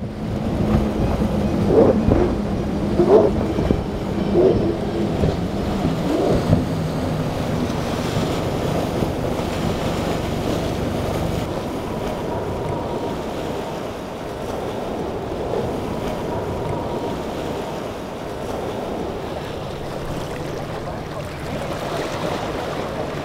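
Outboard engines of a center-console boat running at speed through chop: a steady engine hum broken by several loud splashes in the first six seconds. Wind and surf noise fill the rest.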